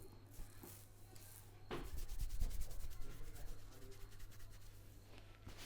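Hands rubbing briskly over a man's scalp and hair in a head massage. A sharp stroke about a second and a half in is followed by a quick run of fast rubbing strokes that fades after a couple of seconds.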